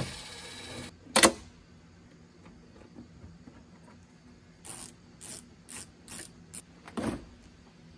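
Cordless drill whirring briefly as it backs a screw out of a pickup's door trim panel. A few seconds later the panel is pried off, with a string of six or seven sharp clicks and pops as its retaining clips snap loose.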